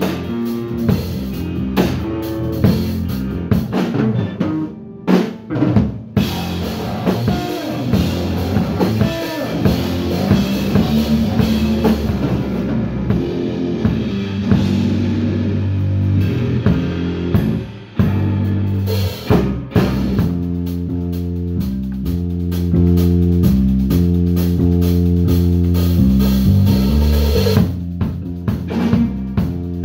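Live rock band playing: a drum kit with electric guitars and bass. It opens with stop-start drum hits and short gaps, then the band plays on steadily over a stepping bass line.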